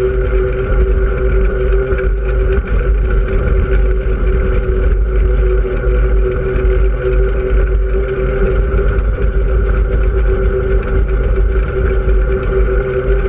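A vehicle's engine running steadily at cruising speed, with wind and road noise on the microphone.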